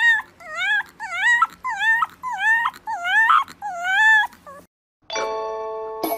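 A fluffy white puppy giving a quick run of short, high whimpering yips, about two a second, each rising then falling in pitch. The yips stop shortly after four seconds in, and after a brief gap ringing chime notes begin.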